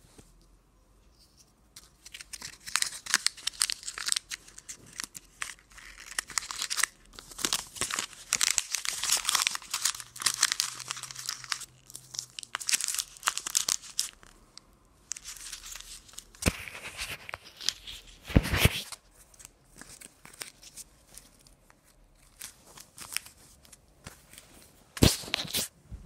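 Crinkly packaging being handled: crumpled and torn in a long run of dense crackling, then a few sharp separate crackles or snaps in the second half.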